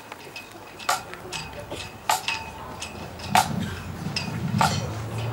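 Irregular light metallic clinks, roughly one or two a second, each ringing briefly at the same pitch, as of one small metal object striking metal again and again.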